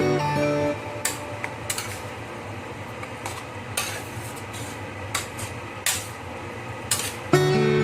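Metal kitchen utensils clinking and knocking against cookware and dishes in irregular, separate strikes, as when stirring or handling food in a pan.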